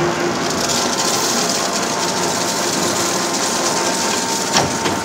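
Warner & Swasey turret lathe running with its large chuck spinning, while coolant pours and splashes out of the deep hole as the spade drill is backed out to clear chips: a steady, dense hiss and mechanical running. A single sharp clank about four and a half seconds in.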